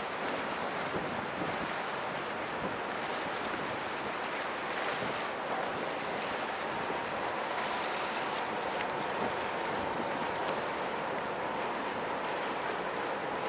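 Steady rushing noise of wind and water, with a faint steady hum coming in about eight seconds in.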